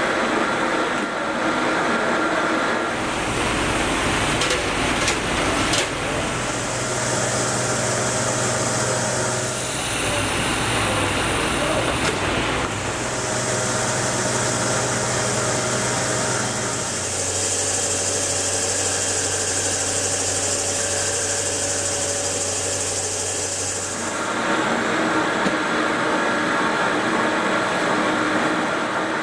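Cryogenic deflashing machine running through its cycle: a steady hum with a high hiss over it, changing in stages. It settles into a deeper hum about 17 seconds in, which drops away about 24 seconds in.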